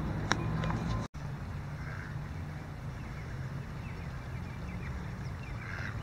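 Outdoor ambience: a low steady rumble with faint bird calls, with a sharp click a third of a second in and an abrupt cut about a second in.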